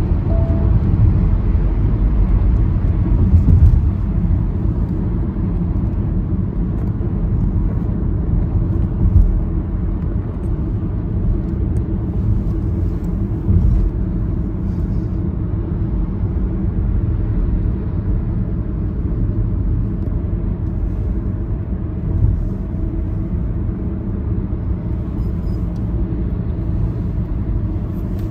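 Steady road and engine rumble of a car cruising along a highway, with a few brief louder bumps.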